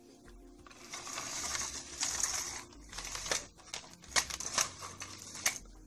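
Handling noise from small plastic toys being moved about: a rustling hiss for about two seconds, then a handful of sharp plastic clicks and taps.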